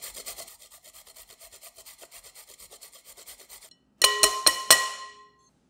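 A carrot being grated on a stainless steel rasp grater: a fast, even run of scraping strokes that stops suddenly. About four seconds in come four sharp knocks with a ringing tail, as the grater is tapped against the rim of a glass bowl to shake the carrot off.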